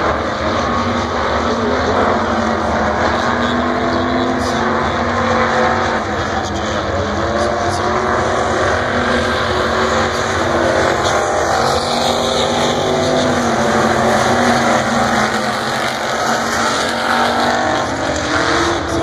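A field of pure stock race cars racing on a dirt oval, several engines running hard at once in a loud, steady din. Their notes waver up and down as the cars lift and accelerate through the turns.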